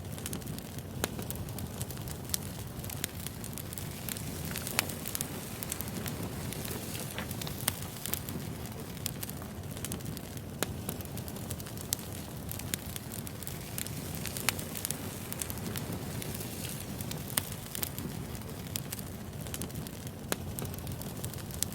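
Wood fire burning steadily, logs crackling and popping with sharp irregular snaps over a low rumble of flame.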